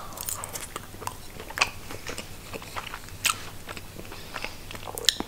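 A person chewing a mouthful of canned sprats in oil: irregular small mouth clicks, with a few louder ones.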